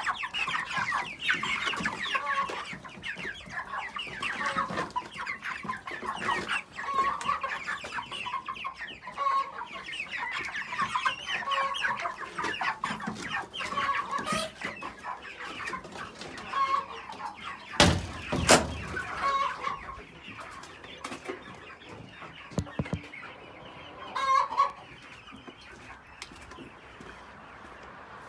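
A flock of white chickens clucking and calling continuously in short repeated notes. About two-thirds through come two sharp loud knocks, and after that the clucking thins to occasional calls.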